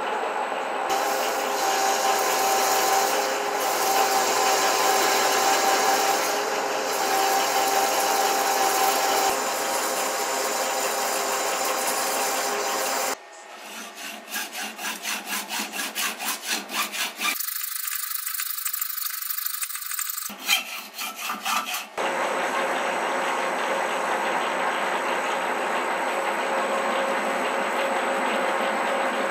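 Metal lathe running with an aluminium bar spinning in its chuck. About thirteen seconds in, the lathe stops and a hand hacksaw cuts through the aluminium bar in quick strokes, about two a second. After the sawing the lathe runs again, turning the cut aluminium piece.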